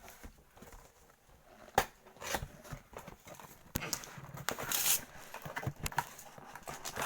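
Cardboard box and packaging of a toy kit being opened and handled: scattered sharp clicks and knocks, the loudest just under two seconds in, with a short rustle of packaging a few seconds later.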